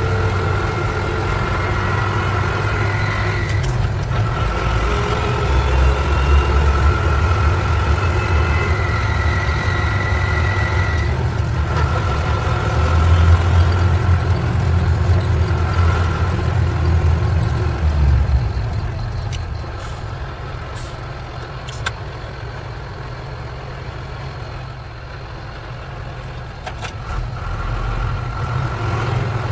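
Truck engine running while driving, heard from inside the cab: a low rumble with a steady high whine above it. The rumble drops away about two-thirds of the way through, with a few sharp clicks, and picks up again near the end.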